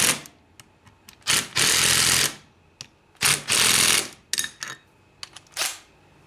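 DeWalt 12-volt cordless driver running in short bursts, about a second each, as it snugs down the Allen-head bolts of a clutch basket's support plate. It runs twice, then briefly once more near the end, with small metal clicks between bursts.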